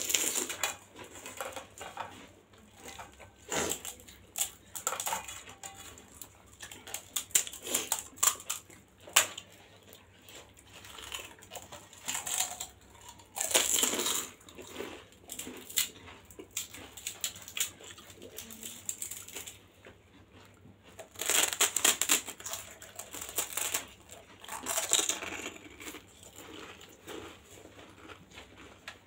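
Close-miked chewing of a whole pani puri: the crisp hollow puri shell crunching and crackling with wet squishing of the filling and spiced water, in irregular bursts. The loudest bursts come about halfway through and again about two-thirds of the way in.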